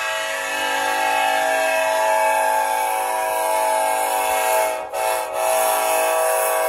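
Multi-chime air horn of an EMD diesel locomotive sounding one long held chord, broken by two quick gaps about five seconds in.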